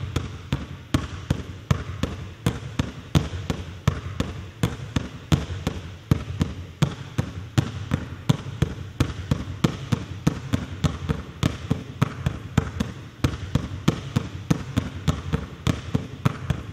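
Two basketballs pounded hard on a hardwood gym floor, one in each hand, and switched between hands. The bounces come as rapid, regular sharp thuds, several a second.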